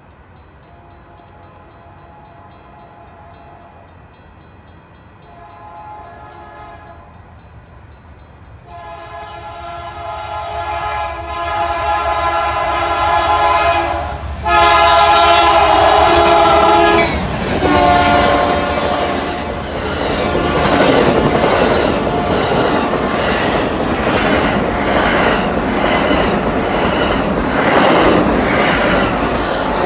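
A BNSF GE Dash 9 diesel locomotive sounding its multi-chime air horn in several blasts, faint at first and then loud in long blasts as it closes in. About two-thirds of the way in, the locomotive and its bilevel Superliner passenger cars go past at speed, with a steady clatter of wheels over the rail joints.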